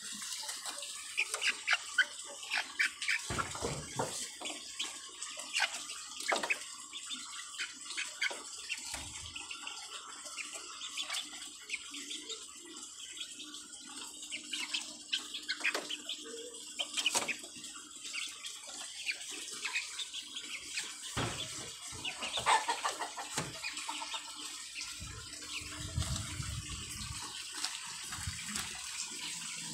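Silver Sebright bantam chickens making short clucks and calls over a steady background hiss.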